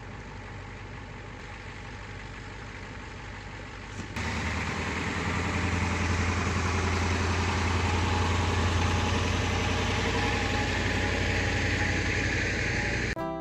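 An engine idling steadily, then about four seconds in, after an abrupt change, a louder heavy engine running steadily with a strong low hum.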